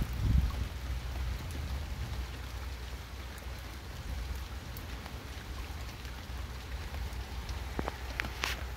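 Heavy rain falling steadily, with a brief low rumble right at the start and a few sharper taps near the end.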